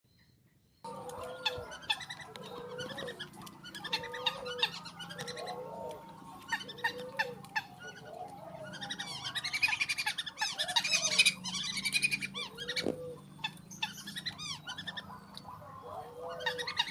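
Captive rail (mandar) calling: a string of short, arched low notes about once every second, mixed with higher chirps and sharp clicks that grow busiest and loudest midway. It starts suddenly after a second of quiet.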